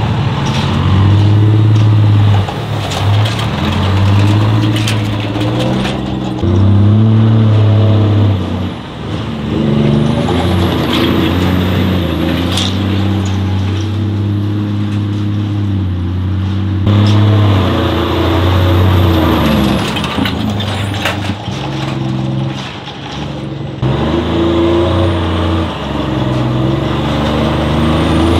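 Tatra off-road trucks' diesel engines labouring and revving as they climb and churn through mud and dirt, the engine pitch rising and falling with the throttle. The engine sound changes abruptly several times.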